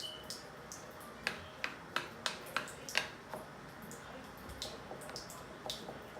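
Body-wash slime mixture being worked, giving sharp sticky clicks and pops: a quick run of about seven clicks a little over a second in, then scattered fainter ones.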